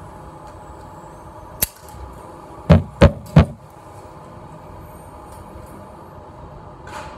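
Three gunshots in quick succession, about a third of a second apart, in an indoor shooting range, with a single sharp crack about a second before them.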